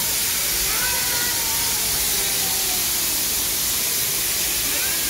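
Steam locomotive venting steam: a loud, steady hiss that does not let up.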